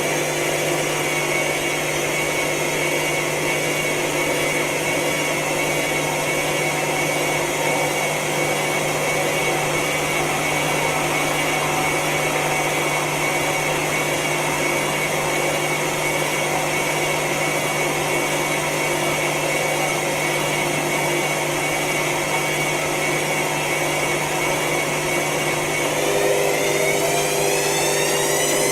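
Hotpoint washing machine running with a steady motor hum and whir. About 26 seconds in, the motor's pitch begins to rise as it speeds up.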